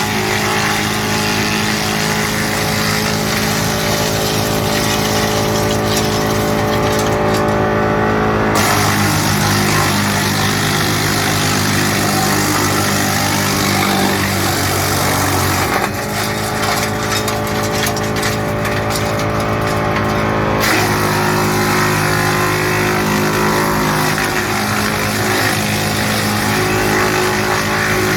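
Tractor-mounted drum woodchipper (GL&D M175DS) running at working speed and chipping birch and walnut branches: a steady machine note under a harsh chipping noise. The chipping noise eases off twice, briefly, with a change in the machine's note each time.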